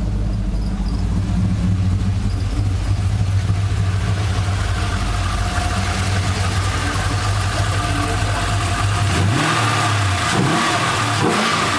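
Holden R8 Clubsport's 5.7-litre LS1 V8, fitted with a new Comp Cams camshaft, running on a warm-up idle; in the last few seconds the revs rise and fall a few times as the throttle is blipped.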